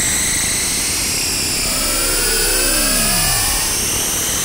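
Yamaha TG33 vector synthesizer playing a creepy sound-design patch: a steady, noisy drone with high whistling bands over it. About halfway through, pitched tones slide up and down across one another, one of them sinking very low.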